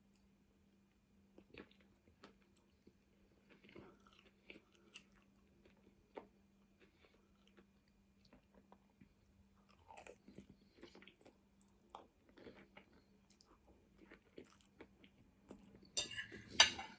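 A person chewing and biting a meal of noodles and chicken nuggets, with faint wet mouth clicks scattered throughout and a louder crunch near the end.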